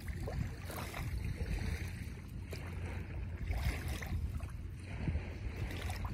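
Wind rumbling on the microphone, with faint water noise and a few soft clicks.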